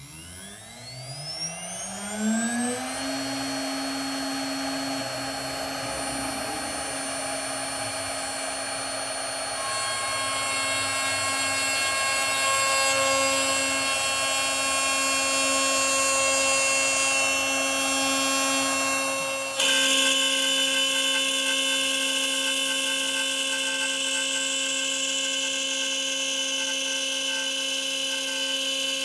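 CNC router spindle with a Diablo straight router bit spinning up over about three seconds to a steady high-pitched whine, then running at speed. About two-thirds of the way through the sound abruptly gets louder and brighter and stays that way.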